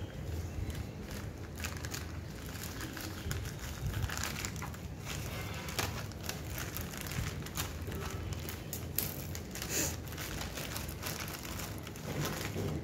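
Scissors snipping through a thin plastic courier mailer bag, the plastic crinkling as it is cut and handled, in irregular crackles over a steady low rumble.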